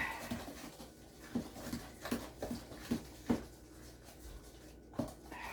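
Spoon knocking and scraping against a mixing bowl as cookie batter with sour cream is stirred by hand, in short irregular strokes about two or three a second, pausing briefly near the end.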